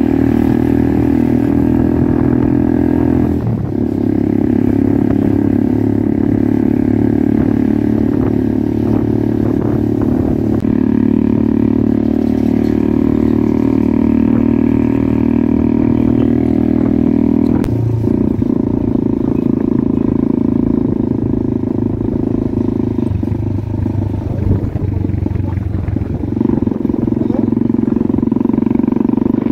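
Motorcycle engine running under way, heard from on the bike, a steady pitched hum whose note shifts a few times as the speed changes.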